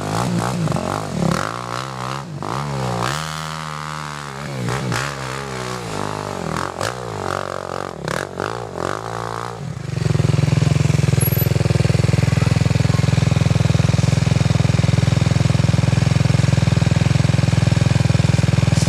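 Sport ATV engine revving up and down unevenly, its pitch rising and falling repeatedly. About ten seconds in it gives way suddenly to a loud, steady, low drone that holds.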